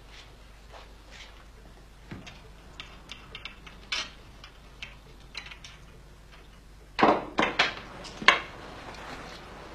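Faint footsteps and small clicks, with a door handle clicking about four seconds in. About seven seconds in come four loud, sharp clacks at a door in quick succession.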